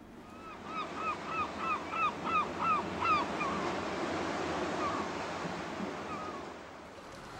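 Surf washing steadily under a series of short, downward-curving animal calls, about three a second, that thin out after about three seconds into a few fainter calls.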